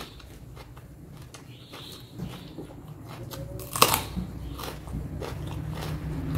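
Close-miked chewing and biting of crunchy food, with one loud sharp crunch about four seconds in. A low rumble grows louder near the end.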